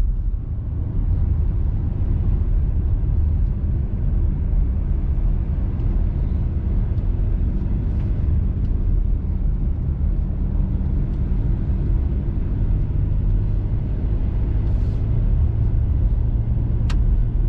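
Steady low engine and tyre rumble inside the cab of a four-wheel-drive diesel pickup truck driving up a mountain road. A single sharp click comes near the end.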